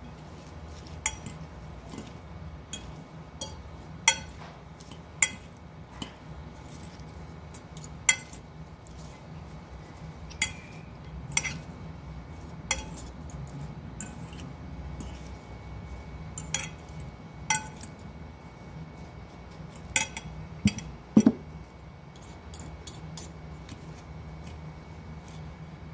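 Two metal forks clinking irregularly against a glass bowl as a shredded cabbage salad is tossed, with a cluster of heavier knocks about three quarters of the way through.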